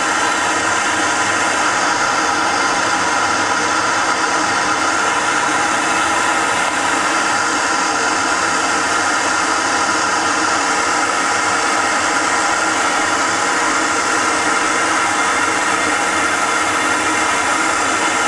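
Soldering torch flame burning steadily while it heats a copper pipe joint for soldering, an unbroken noise at an even level.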